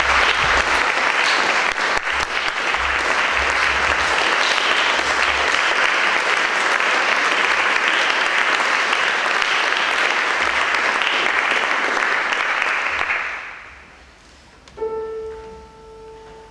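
Audience applauding, the applause dying away about two-thirds of the way through. Shortly after, a single sustained piano note sounds, the A given for the violin to tune to.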